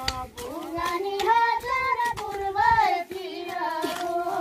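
Voices singing a Nepali folk work song of the kind sung while hoeing and weeding maize, in long held notes that bend in pitch, with a few faint knocks.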